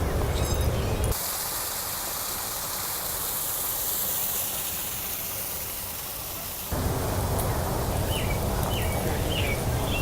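Wind rumbling on the microphone, broken from about a second in until about two-thirds through by a stretch of steady high hiss. A few short high chirps sound near the end.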